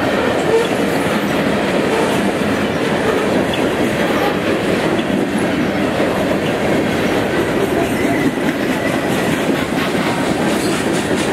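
BNSF mixed freight train of covered hoppers and boxcars rolling past close by, its steel wheels running on the rails in a steady, loud noise.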